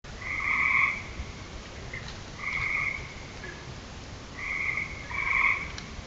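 Frogs calling at night: four short calls, each about half a second long, come every one to two seconds over a faint steady hiss.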